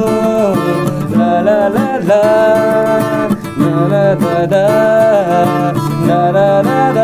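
Two acoustic guitars strummed together, with a wordless sung melody held and gliding between notes over the chords.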